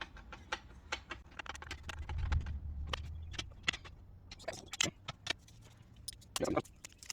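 Irregular light clicks and taps of small stainless screws and a hand tool being worked into holes tight with powder coat. A brief low rumble comes about two seconds in.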